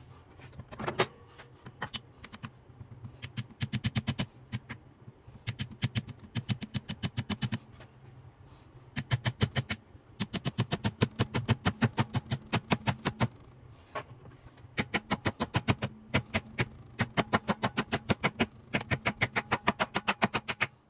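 Hand-tool work on a transfer case during reassembly: runs of quick, even metallic clicks, about eight to ten a second, come in bursts of one to four seconds with short pauses between. A faint steady hum sits underneath.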